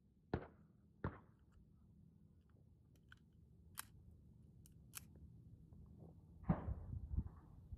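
A few sharp knocks and two thin metallic clicks as a Sig Sauer P938 pistol is handled, then, once it is raised, a single louder shot about six and a half seconds in, trailed by low thumps.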